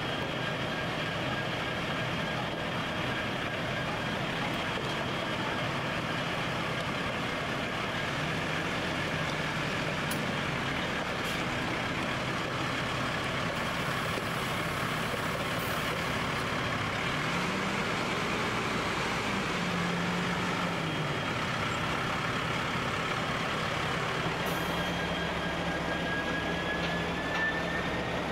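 Diesel locomotives idling with a road fuel tanker truck's engine running beside them: a steady engine hum with a high whine over it. The low engine note rises and falls a few times, and a whine climbs in pitch near the end.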